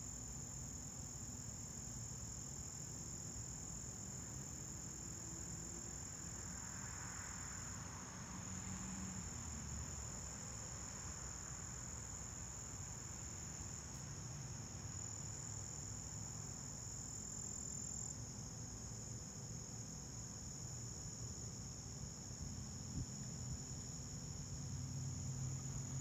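Steady, high-pitched chorus of crickets and other singing insects, over a faint low rumble.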